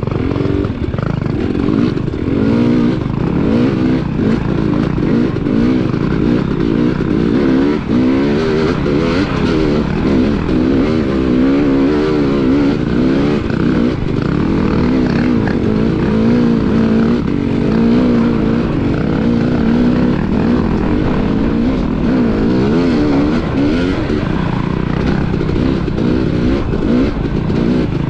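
KTM 250 XC dirt bike engine under way on the trail, revving up and down continuously as the throttle is opened and closed, its pitch rising and falling every second or two.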